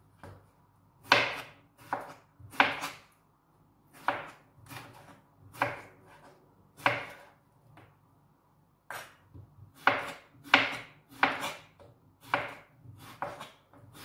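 Kitchen knife slicing a cucumber into rounds on a cutting board: a crisp knock of the blade on the board with each cut, irregularly about one to two cuts a second, with a short break a little past the middle.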